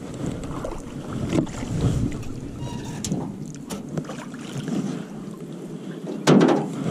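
Handling noises in a small aluminium boat while a hooked bass is brought in: scattered knocks and clatter against the hull, one loud thump about six seconds in, and wind rumbling on the microphone.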